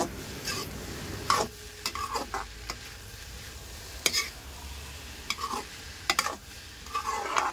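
Metal spatula stirring and scraping corn kernels, onion and tomato around a metal kadai, in irregular strokes about once a second, over a faint sizzle of the mixture frying.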